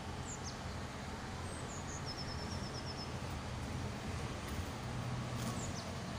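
Small birds chirping: a few short, high falling calls and, about two seconds in, a quick run of about nine notes. Under them runs a steady low background rumble.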